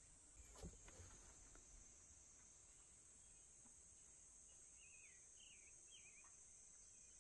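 Near silence: a faint, steady high-pitched insect chorus, like crickets, with a couple of light clinks in the first second and three short faint chirps about five to six seconds in.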